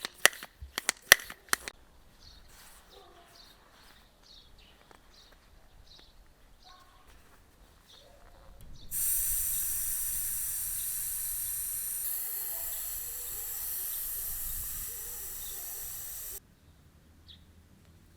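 A run of sharp clicks, then about halfway through a loud steady hiss that starts abruptly, lasts about seven and a half seconds and cuts off suddenly.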